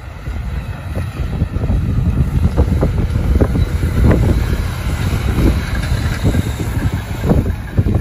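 Heavy snowplow dump truck passing close, its engine rumble growing louder over the first couple of seconds, with rough scraping and clatter from the steel plow blade dragging along the snowy road.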